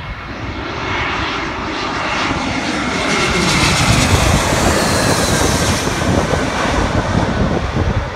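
Twin-engine jet airliner passing low overhead on approach to land, gear down. Its engine noise builds to a peak about halfway through, then eases as a high engine whine drops in pitch while it moves away.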